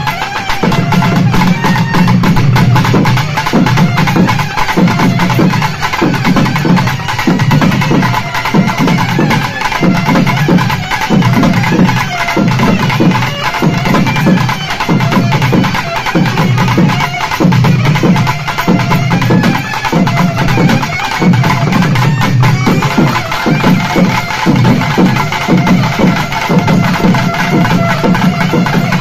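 Naiyandi melam folk band playing a fast, driving rhythm on thavil barrel drums, with a sustained reed-pipe melody, typically a nadaswaram, carried over it.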